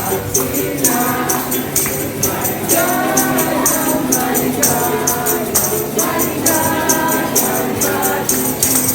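Restaurant staff singing a song together in a group, with tambourines jingling on a steady beat.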